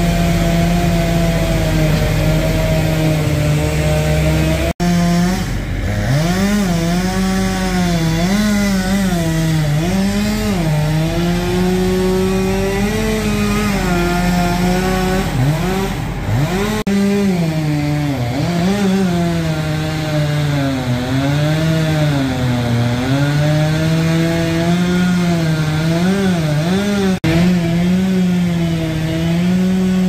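Chainsaw running at high revs, its pitch dipping and recovering again and again as it loads up in the wood. It cuts out briefly two or three times.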